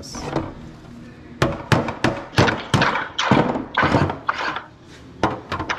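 A run of sharp metal knocks on a riveted sheet-aluminium aircraft ski, about three a second from a second and a half in, then a few more near the end, as rivets holding the plastic to the metal are worked.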